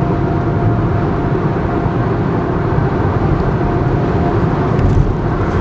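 Steady road noise inside a car moving at highway speed: tyre and engine rumble with a faint steady hum over it.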